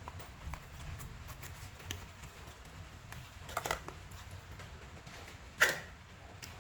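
Slime being squeezed and pressed, giving a few scattered wet clicks and pops, the loudest a sharp pop near the end.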